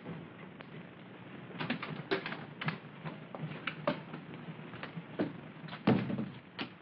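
Footsteps on a hard floor: irregular clicks and knocks of people walking in, with a heavier knock about six seconds in.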